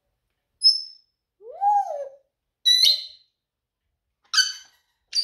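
African grey parrot calling: a short high whistle, then a lower call that rises and falls, then two harsh squawks.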